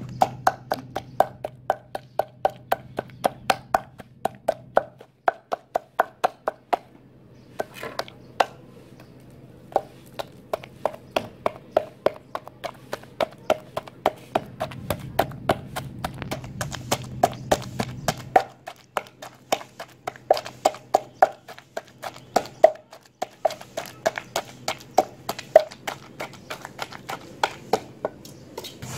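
Wooden pestle pounding red chilies in a mortar: steady knocks about three a second, each ringing briefly, with a few short pauses.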